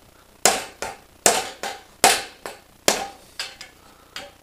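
Hammer blows on a bar driven up the exhaust of a 2013 Kawasaki ZX-6R, pounding out the catalytic converter. There are four heavy strikes a little under a second apart, each with a lighter one after it and a short metallic ring.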